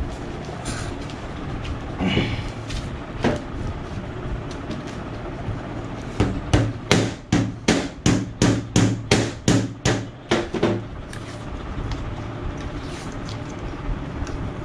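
Adhesive tape ripped off its roll in quick short tugs, about three a second for several seconds, as it is wound around the wire ring of a homemade Thomas splint. A few scattered rustles and knocks come before it.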